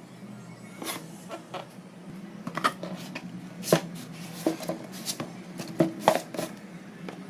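Irregular taps, clicks and rustles from a boxed keyboard and its packaging being handled, over a steady low hum.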